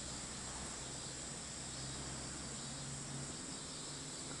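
Faint, steady outdoor background noise with a low hum and no distinct event.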